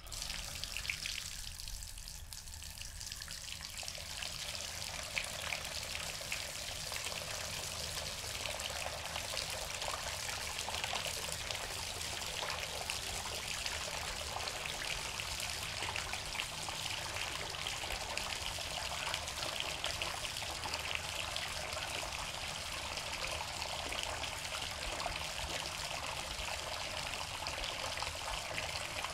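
Water running steadily from a bathtub faucet, starting as the handle is turned and building over the first few seconds to a steady rushing trickle.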